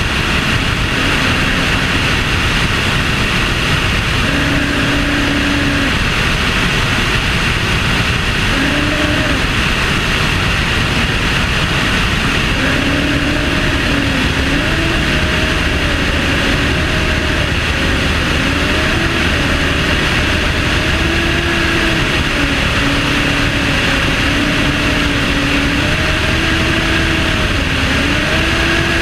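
Light aircraft engine and propeller noise in flight with heavy wind rush over a wing-tip microphone; a droning tone wavers up and down in pitch.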